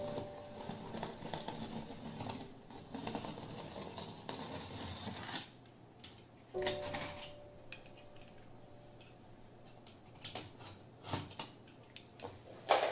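Snap-off utility knife slicing through packing tape along a cardboard box seam, a continuous scratchy cut for the first five seconds or so. Then lighter handling and a few sharp clicks and knocks, the loudest just before the end as the knife is moved away.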